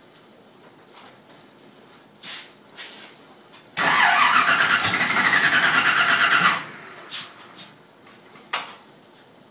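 Carburetted V8 race-car engine turned over by its starter for about three seconds with a fast, even cranking rhythm, then stopping without catching: a first start attempt on a newly built engine. A few short knocks before and after.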